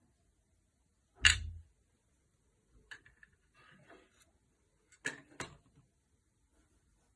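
Clicks and taps of hands working on a smartphone with small tools and plastic parts: one sharp knock about a second in, faint rustling, then two quick clicks about five seconds in.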